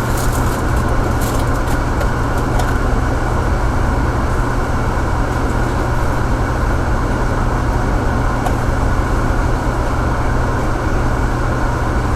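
Steady low hum and rushing noise of commercial kitchen ventilation, with a few light clicks and scrapes in the first few seconds.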